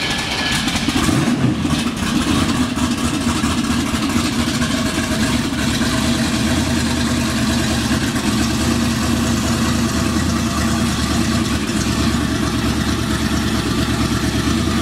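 Chevelle SS's V8 engine running at idle, with a brief rise in revs between one and two seconds in, then a steady idle.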